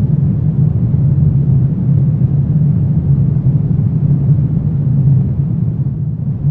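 Low, steady rumbling drone of a dark ambient sound bed, with no voices or sharp sounds over it.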